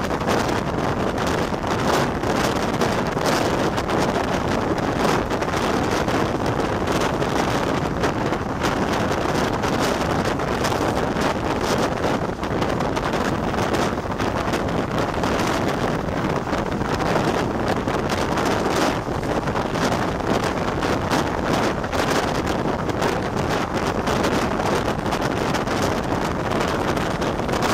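Indian Railways express passenger train running at speed, heard from beside the coach: a steady rumble of wheels on rail with frequent short knocks, and heavy wind buffeting the microphone.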